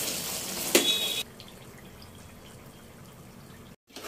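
Chicken curry sizzling and bubbling in an aluminium pot while a steel ladle stirs it, with one clank of the ladle against the pot about three-quarters of a second in. About a second in the sound cuts off suddenly, leaving faint room tone.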